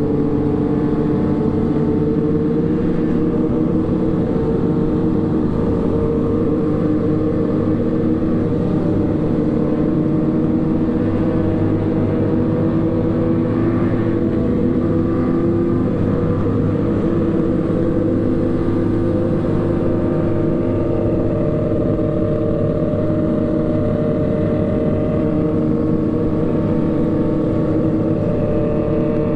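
Motorcycle engine running at a steady cruise, its pitch drifting gently up and down.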